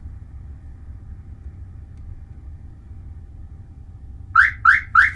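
Car alarm siren giving a quick series of short rising chirps near the end, three in a row about a third of a second apart: the alarm's signal that it has entered remote-programming mode after the service button was pressed with the ignition on. Before that there is only a steady low rumble.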